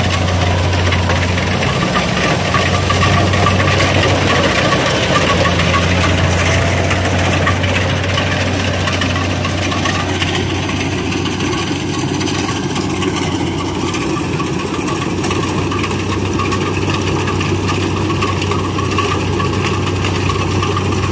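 Kubota combine harvester running steadily as it cuts and threshes lodged rice, its diesel engine making a constant deep hum under the rattle of the cutting and threshing works.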